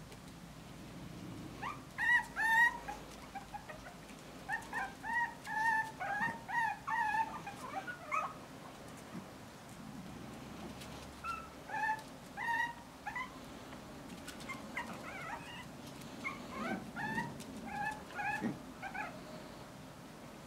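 Five-week-old Bolonka Zwetna puppies squeaking and whimpering, short high-pitched calls with bending pitch, as an adult dog tussles with them. The calls come in three spells, the longest at the start, with short pauses between.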